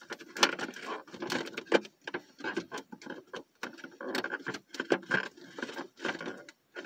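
Plastic and cardboard packaging being handled: irregular crinkling, clicking and tapping as an action figure is worked in and out of its plastic tray and box.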